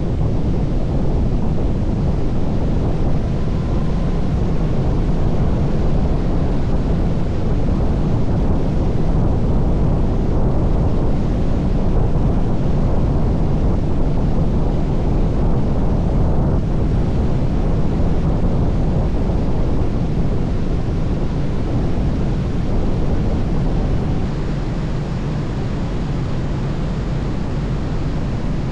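Airflow rushing past a glider in flight, buffeting a camera microphone mounted outside on the wing: a steady, deep wind rumble with no engine, dropping a little in level a few seconds before the end.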